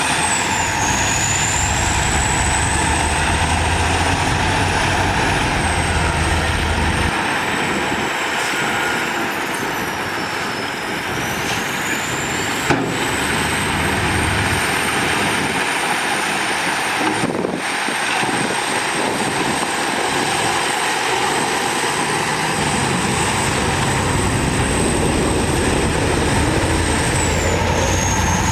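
Heavy diesel earthmoving machinery running steadily, with a thin high whine wavering in pitch throughout. The deep engine rumble drops away for a long stretch in the middle and comes back near the end, and there is one sharp click a little before halfway.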